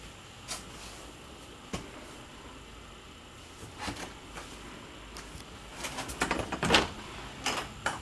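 Travel trailer's wooden interior door being opened: a few light clicks, then a cluster of knob, latch and rattling knocks about six to seven seconds in, with two more clicks near the end.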